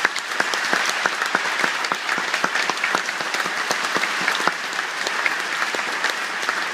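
Large audience applauding, a dense wash of many hands clapping with sharp individual claps standing out, held steady and beginning to thin out near the end.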